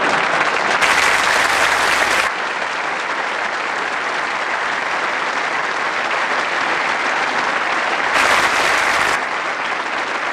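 Large audience applauding steadily. The applause swells briefly about a second in and again near the end.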